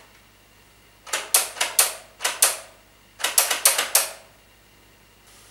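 An electric airsoft rifle (AEG) clicking dry as its trigger is worked over and over, in two quick runs of about six sharp clicks each, without firing. The rifle is dead on a 7.4 V LiPo battery, and the fault is not the battery.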